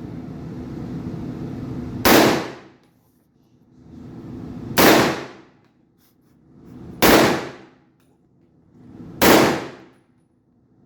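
Four gunshots from a firearm at a shooting range, a little over two seconds apart, each with a sharp crack and a short fading ring.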